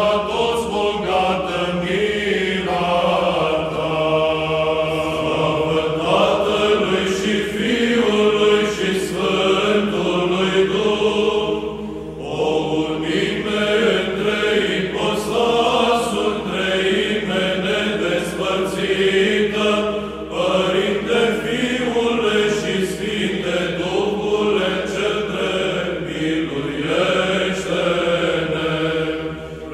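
Eastern Orthodox church chant: voices singing a hymn in slow, drawn-out phrases, with short breaks for breath about 12 and 20 seconds in.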